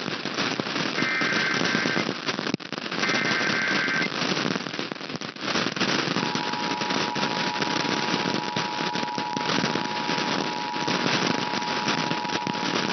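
An Emergency Alert System transmission received through heavy radio static: three short warbling bursts of the digital SAME header, each about a second long, then about six seconds in the steady two-tone EAS attention signal, which continues to the end. The tones announce an incoming severe thunderstorm warning.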